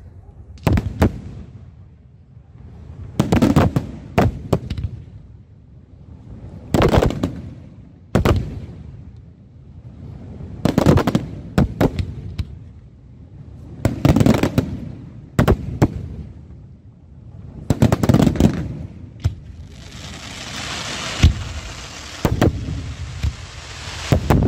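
Aerial firework shells bursting in clusters of loud bangs about every three to four seconds, each bang followed by a rolling echo. Near the end a steady crackling hiss lasts a few seconds between the bangs.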